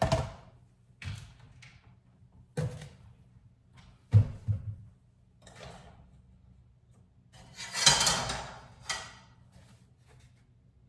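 Kitchen clatter: a string of separate knocks and clunks of things being handled and set down, the loudest about four seconds in, then a longer rough scraping noise of about a second and a half around eight seconds in.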